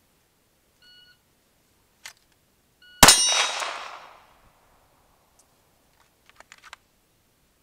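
An electronic shot-timer beep about a second in, then a single Glock 19X 9mm pistol shot about two seconds later, on a timed draw from a concealment holster; the shot rings out for over a second. A few faint clicks near the end as the pistol goes back into the holster.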